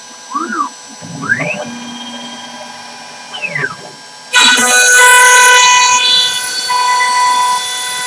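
CNC router's stepper motors whining in short rising-and-falling glides as the gantry makes rapid moves. About four seconds in, the router bit cuts into the wooden blank and a loud, steady routing noise takes over.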